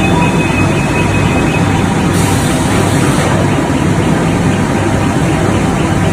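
Hot rolling mill running, with a loud, steady din and a low hum as a red-hot steel bar runs along the roller table. A brief high hiss of about a second comes in about two seconds in.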